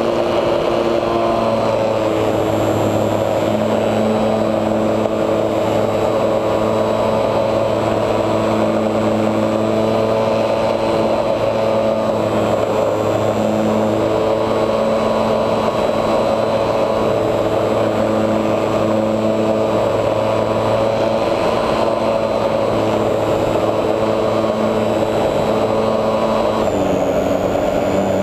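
HobbyZone Super Cub RC plane's electric motor and propeller running steadily in flight, heard from a camera mounted on the plane, its pitch shifting a little now and then and stepping once near the end.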